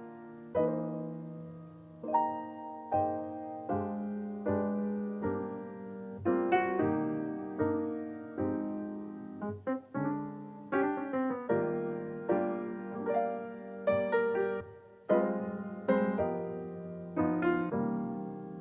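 Background music: a gentle piano piece, chords and single notes struck and left to ring and fade.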